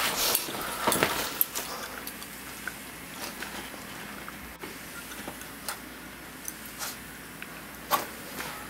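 Clothing rustling and scattered light knocks and clicks as a person gets dressed and moves about a room, over a faint steady hiss.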